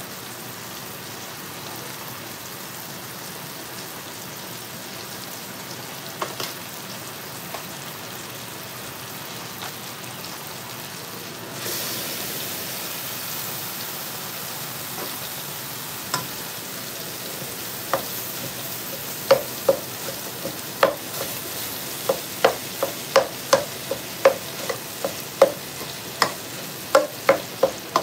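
Sliced kielbasa sizzling in a large nonstick frying pan. About twelve seconds in, ground beef is dropped in and the sizzle gets louder. In the last ten seconds a utensil knocks against the pan about twice a second as the meat is worked.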